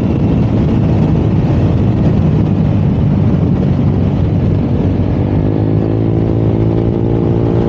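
Honda Click 125i scooter's single-cylinder engine and CVT running under way, with wind rushing over the microphone; the engine note rises from about five seconds in as it accelerates. It is running normally now that its loose crankshaft drive-face nut has been re-tightened.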